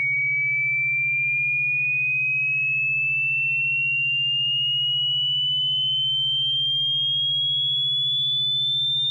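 Synthetic cat-repellent tone: a loud, pure, high-pitched tone slowly rising in pitch, with a much fainter tone gliding downward and a steady low pulsing hum beneath.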